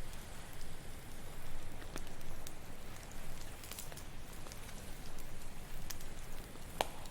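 Campfire crackling, with scattered sharp pops and snaps, the loudest near the end, over a steady hiss of ocean waves.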